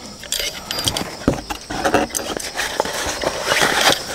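Handling noise from a small hand digging tool, a combined shovel and pick: irregular clicks and knocks as it is worked in the hands. Rustling is heard as it is slipped into its fabric pouch near the end.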